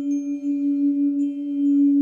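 Crystal singing bowl sounding one low, sustained tone with a fainter octave above it. Its loudness wavers in a quick pulse, then evens out and swells slightly about halfway through.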